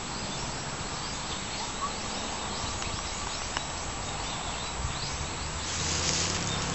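Outdoor ambience: short, high, falling chirps repeating about twice a second over a low rumble. About six seconds in, a louder rushing hiss sets in.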